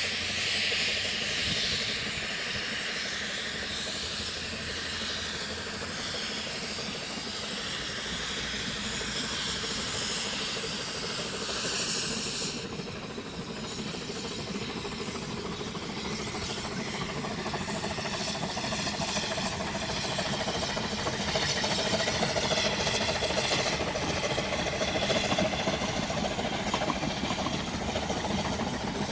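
Narrow-gauge Ffestiniog Railway steam train approaching along an embankment: a steady hiss at first, then the train's running grows louder, with coaches rumbling past near the end.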